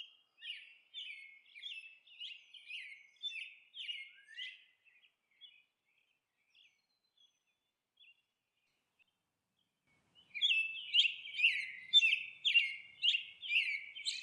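Bird chirping in a steady series of short, quick chirps, about two a second; it stops about four and a half seconds in and comes back louder about ten seconds in.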